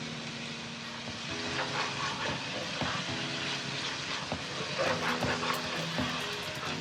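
Tomato sauce frying and sizzling in a pot, with a few clicks of a spoon against the pot, over soft background music.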